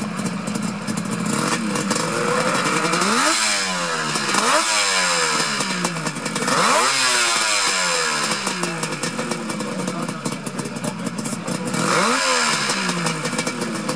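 Suzuki GT550's air-cooled three-cylinder two-stroke engine idling and blipped up sharply about four times, each rev falling quickly back to idle, with a longer stretch of idle before the last one.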